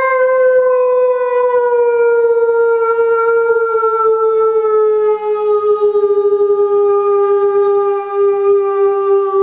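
People imitating a wolf howl: one long held howl that sinks slowly in pitch, sung by two women together.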